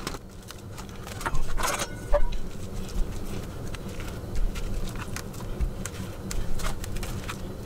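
Plastic wrap on a tray of raw chicken breasts crinkling and rustling as it is pulled back, with soft handling clicks as the breasts are lifted into a steel bowl, over a steady low hum.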